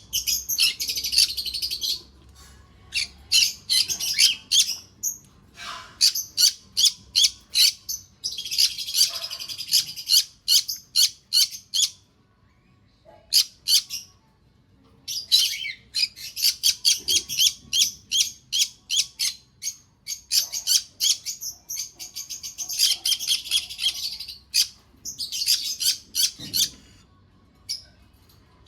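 Small pet parrots chirping in fast, high-pitched runs of short notes, with a lull of a few seconds about halfway through.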